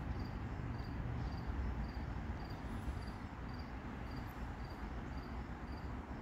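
An insect chirping evenly, about twice a second, over a low steady rumble.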